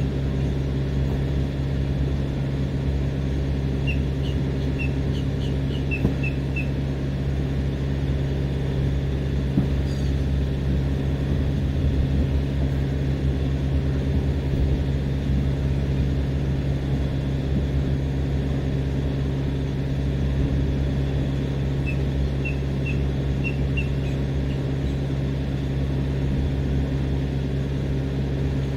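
Parked refrigerated tractor-trailer running with a steady low diesel drone. Two short series of high chirps sound over it, about four seconds in and again near the end.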